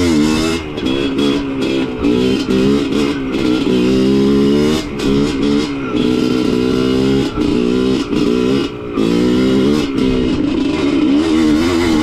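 Yamaha DT125 two-stroke single-cylinder engine revving while the bike is ridden, its pitch climbing and dropping back again and again as the throttle is worked.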